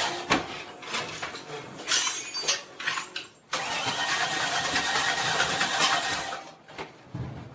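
Motorcycle engine being started and running hard in two loud spells, breaking off about three and a half seconds in, catching again, then dying away near the end.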